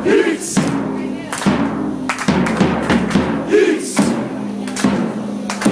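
A crowd of football fans chanting together, with a bass drum beaten in time under the singing.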